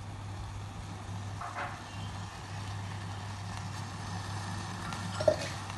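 Steady low hum with light background noise, and a single short click or knock about five seconds in.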